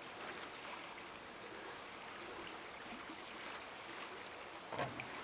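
Faint steady background hiss with a few faint ticks, and one short louder scrape-like noise near the end.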